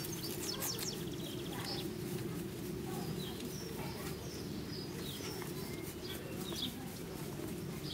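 Small birds chirping now and then over a steady low hum of outdoor background noise.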